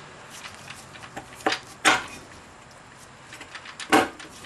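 Cast aluminium rear cover of an F4A42 automatic transaxle being set on the case and pressed down to seat it, knocking metal on metal: a faint knock about a second and a half in, then a louder knock at about two seconds and another near the end.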